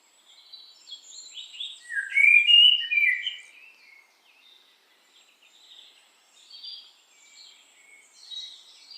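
Birds chirping and calling, many short overlapping chirps, loudest about two to three and a half seconds in.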